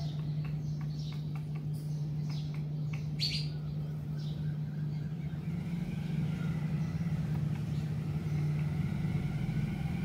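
A steady low hum, like a running engine or machine, holds at one pitch throughout. Small birds chirp briefly over it in the first three or four seconds, with short clicks among the chirps and one louder chirp a little after three seconds.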